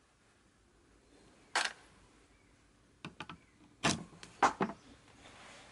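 Small hand-tool handling sounds: a screwdriver and small screws clicking and knocking against a metal airsoft gearbox shell. One sharp clack comes about a second and a half in, then a quick run of clicks and knocks a few seconds later.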